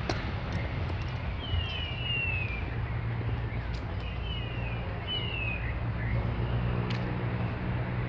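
Short bird-like whistles, each one sliding downward, some single and some in quick runs of two or three, over a steady low rumble with a few faint clicks.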